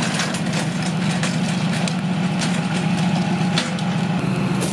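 Vehicle engine idling steadily, with scattered light clicks over it.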